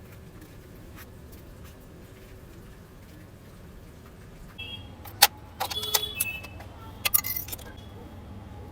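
Low steady hum, then, about halfway in, several sharp clicks and short clattering bursts of small hard objects being handled.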